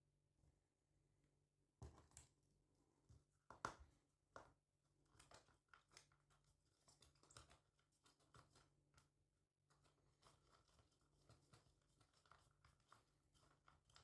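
Faint, irregular clicks and scrapes of small-scale hand work with tools or parts, starting about two seconds in.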